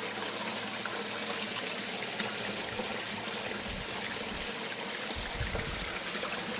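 Water trickling steadily through a small pump-fed indoor creek and pond.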